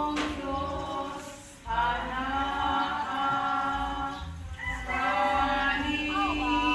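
A group of voices singing a song together in unison, holding long notes, with a short break about a second and a half in.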